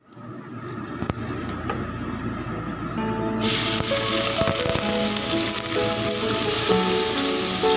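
Minced garlic tipped into hot oil in a wok, starting a sizzle about three and a half seconds in that carries on steadily; before that the oil hisses only faintly. Background music plays throughout.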